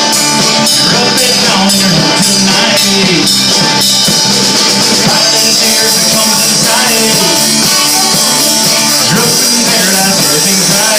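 A rock song played by a full band with drums and guitar, loud and steady.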